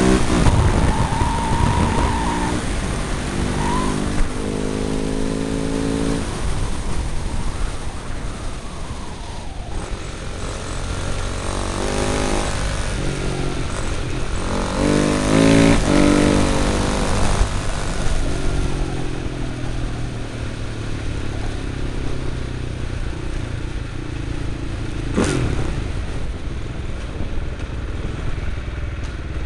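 Husaberg motorcycle engine heard from the bike itself over wind rumble, accelerating with its pitch climbing and stepping as it shifts gears, then running more gently. One sharp knock near the end.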